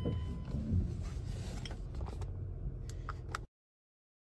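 Inside a Mazda 3's cabin while driving slowly: a low engine and road rumble with a few light clicks and knocks, ending abruptly about three and a half seconds in.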